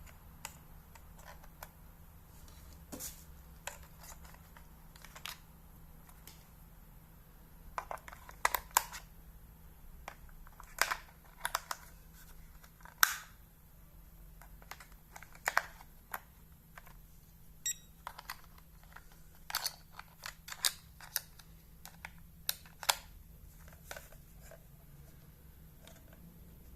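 Irregular clicks and taps of a plastic digital alarm clock being handled and its buttons pressed, with one short beep about 18 seconds in.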